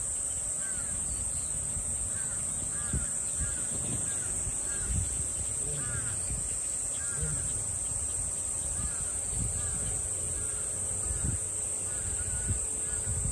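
Outdoor ambience: a steady high-pitched insect drone, with short bird calls repeating every second or so over a low rumble.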